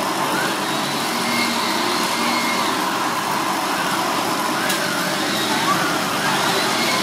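Steady, unbroken noise of a roadside cooking stall: passing traffic blended with the gas burner and a pan bubbling on it.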